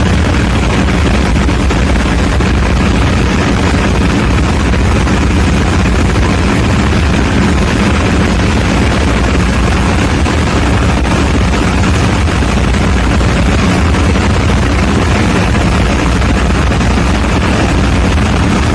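Ship's diesel generator engine running, a loud, steady drone with a low hum and a wash of machinery noise in the engine room.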